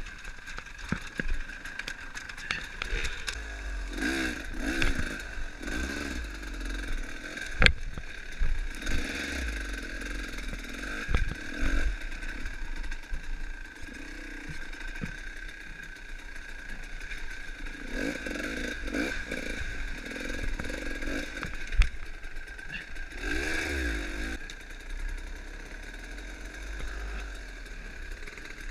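Dirt bike engine running and revving up in short bursts as it is worked over rocks and roots, with a few sharp knocks and scrapes of the bike on the ground.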